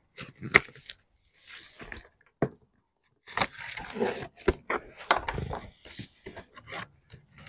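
A cardboard shipping box being opened by hand: packing tape peeling and cardboard flaps scraping and rustling, in short irregular bursts with sharp clicks and a brief pause about three seconds in.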